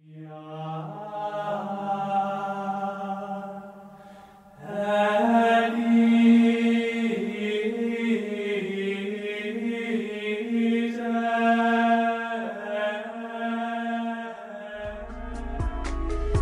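Chanting voices singing long held notes on a steady pitch, a new phrase starting about four and a half seconds in. Near the end, a different music passage with a heavy low bass comes in.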